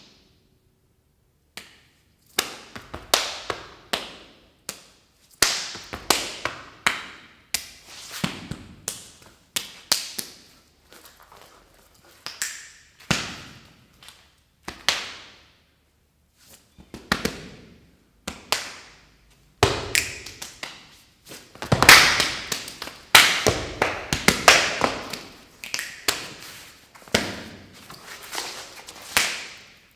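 Body percussion from dancers: irregular sharp slaps, taps and thuds, each ringing briefly as it dies away. The strikes start after a moment of silence and grow denser and louder in the second half.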